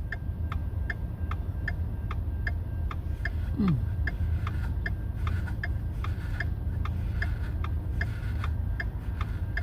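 Railroad crossing bell ringing steadily, about two or three strokes a second, over the low rumble of the slow train passing the crossing.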